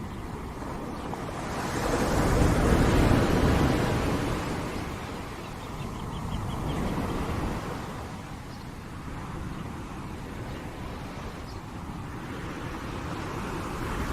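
Ocean waves breaking and washing up a shore. A big wave swells and crashes about two seconds in, a smaller one follows around six seconds, and then a lower, steady wash of surf.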